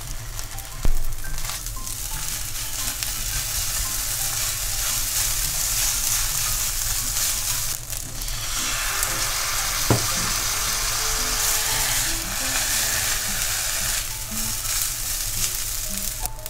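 Fried rice sizzling in a hot pan while it is stirred and turned with a silicone spatula. The sizzle grows stronger about halfway through. There are two sharp knocks, one about a second in and one about ten seconds in.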